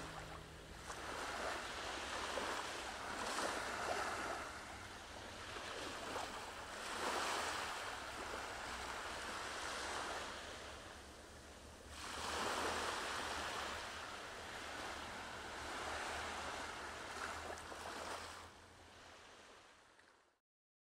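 Sea waves washing on the shore, each swell rising and falling every few seconds. The sound fades out and cuts off near the end.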